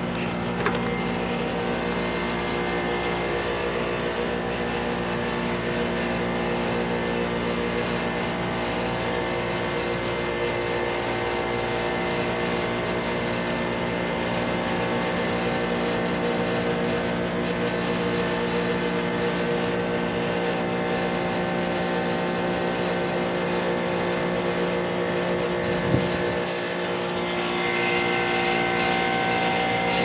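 Carrier WeatherMaker 50TCQD 12.5-ton rooftop heat pump running through a defrost cycle: its compressors hum steadily with a mechanical drone while frost melts off the outdoor coil. A brief click comes near the end.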